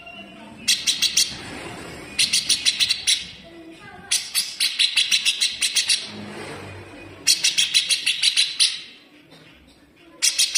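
Grey-cheeked bulbul (cucak jenggot) giving its harsh, sharp rattling call in five bursts, each a fast run of about eight notes a second. The middle burst, starting about four seconds in, runs for about two seconds; the others last about a second each.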